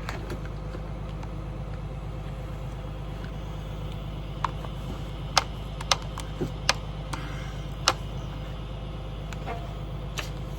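Tractor engine running steadily at idle, with a handful of short, sharp clicks and taps in the middle from hands working on metal hitch and hose connections.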